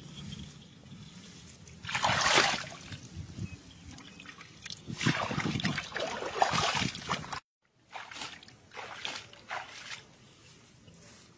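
Shallow muddy water splashing and sloshing in two bouts: a short loud one about two seconds in, and a longer one from about five seconds in that cuts off suddenly.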